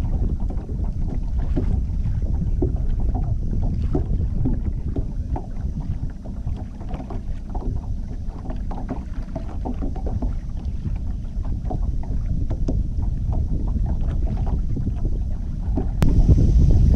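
Wind rumbling on the microphone aboard a small fishing boat on open water, with small irregular ticks and splashes over it. It gets louder near the end.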